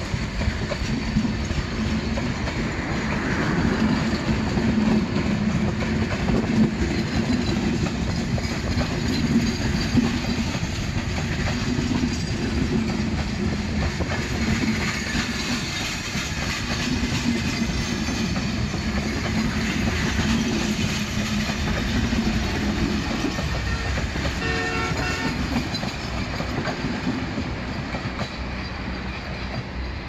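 Passenger coaches of a train rolling slowly past close by, wheels rumbling and clacking on the rails, fading as the last coach pulls away near the end. About 24 seconds in, a brief pitched tone sounds for about a second.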